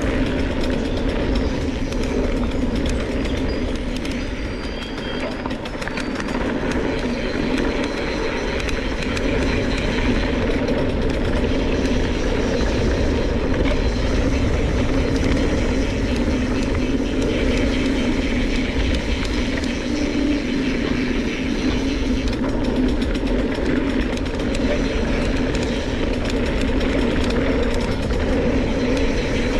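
Mountain bike rolling along a hardpacked dirt trail: a steady hum and rumble of the tyres on the dirt, with rattling from the bike.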